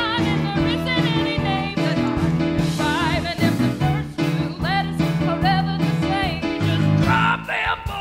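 Women singing a 1960s-style pop number with vibrato over a live band's steady bass line and accompaniment; the band drops back about seven seconds in, leaving the voices more exposed.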